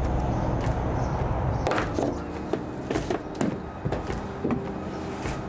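A low steady rumble, then, from about two seconds in, a string of sharp wooden knocks and clatters as pine tongue-and-groove boards are handled and set against a van's wall framing.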